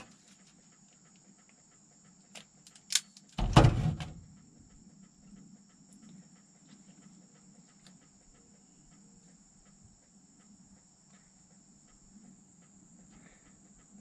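Insects trilling steadily at a high pitch in the background, with small clicks and rustles of wires being handled by hand. A couple of sharp clicks come about two and a half to three seconds in, followed by a loud thump.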